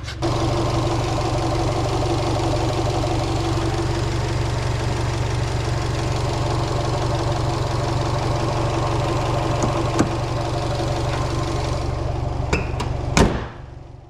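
Subaru Legacy BL5's flat-four engine idling steadily, with a single click about ten seconds in and a sharp knock near the end as the sound fades away.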